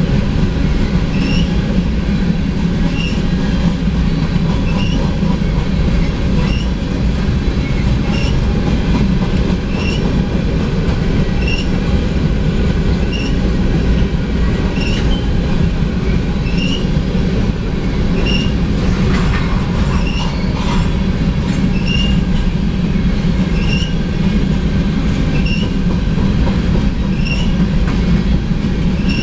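Empty covered hopper cars of a freight grain train rolling past a grade crossing: a steady low rumble and wheel clatter, with the crossing bell ringing about once a second. A brief wheel squeal comes about two-thirds of the way through.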